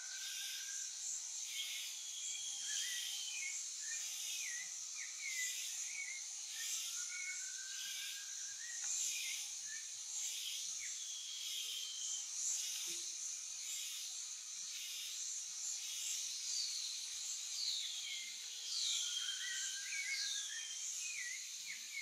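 Tropical forest ambience: a steady high insect drone that pulses in a regular rhythm, with birds calling over it in slow rising whistles and short falling chirps and swoops.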